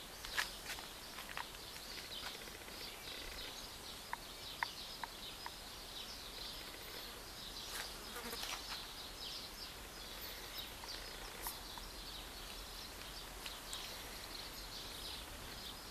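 Faint outdoor garden ambience: a dense, steady high twittering with scattered short light clicks, a few of them louder.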